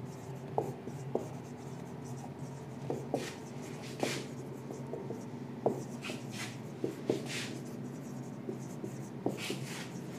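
Marker pen writing on a whiteboard: short squeaky strokes and light taps at irregular intervals, over a faint steady hum.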